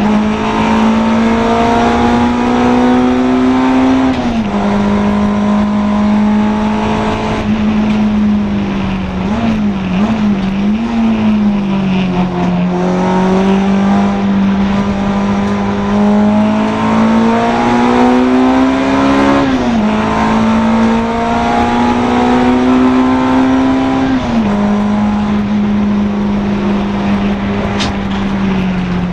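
Honda Integra DC2 race car's four-cylinder engine running hard at high revs. The pitch climbs slowly through each gear and drops sharply at upshifts about four seconds in and again near twenty and twenty-four seconds, with a brief wavering blip of revs around ten to twelve seconds.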